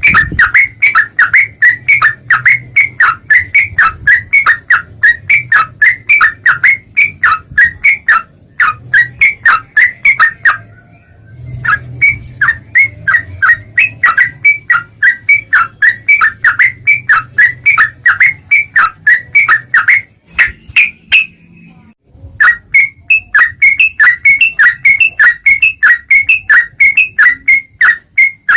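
Yellow-vented bulbul (trucukan) calling: a fast run of sharp, loud chirps, about four to five a second, broken twice by brief pauses.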